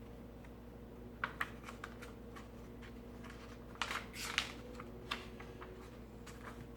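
A picture book being handled and its page turned: a few light clicks and taps, then a short paper rustle about four seconds in.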